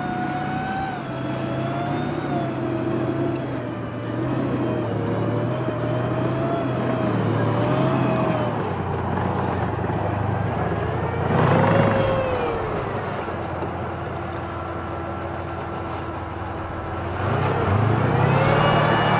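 WZT-2 tracked armoured recovery vehicle driving on its tracks, its V-55 V12 diesel engine running under load. The engine revs up and falls back about twelve seconds in, then rises again near the end.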